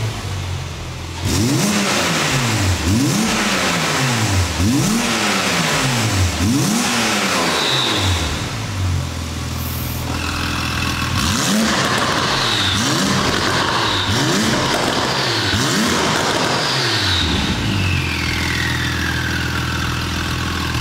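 Porsche 991.2 Carrera S 3.0-litre twin-turbo flat-six blipped again and again through an Armytrix valvetronic exhaust, each rev rising and falling quickly back to idle. The first series of revs is with the exhaust valves closed, the second, after a short pause, with them open. Short high whistles follow some revs, and a long falling whistle comes near the end.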